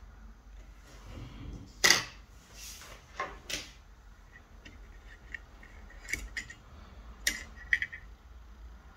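Sharp clicks and light metallic taps as small hand tools and a perfboard are handled: tweezers and a soldering iron set aside, and the board taken from a helping-hands clamp. About seven clicks in all, the loudest about two seconds in.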